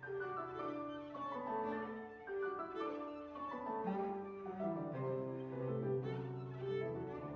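Cello and grand piano playing a classical piece together, the cello bowing long sustained notes over the piano.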